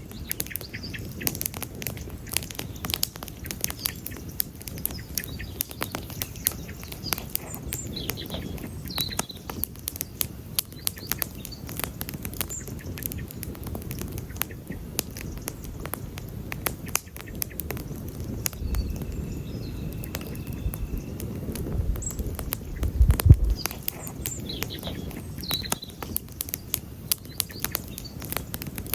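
Wood campfire crackling steadily with many sharp pops and snaps over a low rushing burn. A few faint high chirps come through, and a brief low rumble swells about 23 seconds in.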